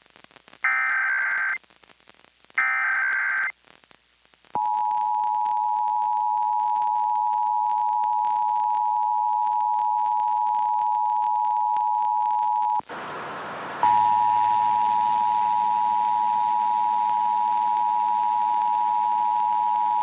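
Emergency Alert System test broadcast over FM radio: two short buzzing bursts of the digital SAME header data, then the steady two-tone attention signal. About thirteen seconds in, the tone drops out for a second under a burst of hiss, then resumes over a faint hiss and hum.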